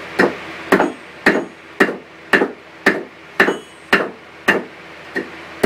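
Hand hammer striking red-hot 1/4-inch steel round bar on an anvil, a steady blow about every half second, about ten in all. Several blows leave a brief high metallic ring.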